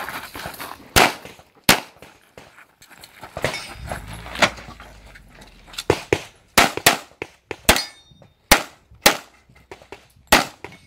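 Pistol shots fired during a practical shooting stage: about a dozen sharp cracks, a few spread out at first, then several quick pairs of shots about a third of a second apart.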